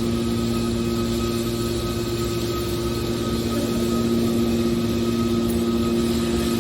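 Machinery running steadily with a constant hum of a few fixed pitches over an even mechanical noise.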